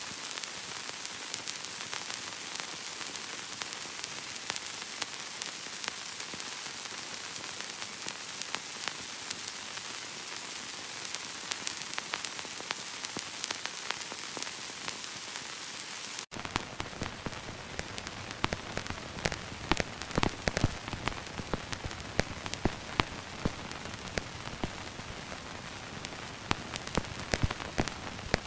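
Old-film hiss with fine crackle. About 16 seconds in it switches abruptly to a rougher take, with louder, frequent pops and crackles over the hiss.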